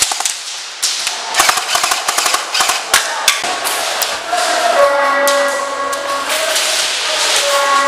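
Airsoft guns firing in quick runs of sharp cracks and clicks, with BBs smacking off walls and barricades. In the second half a steady, horn-like chord of held tones sounds twice.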